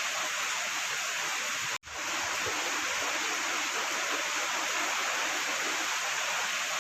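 Steady rain pouring down, an even hiss that breaks off for an instant about two seconds in.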